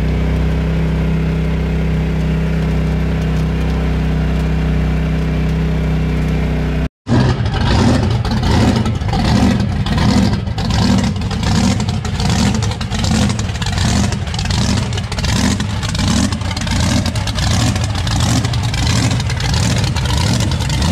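A side-by-side's engine runs at a steady pitch. After a cut, a mega truck's big engine idles in a pulsing rhythm, about one and a half beats a second.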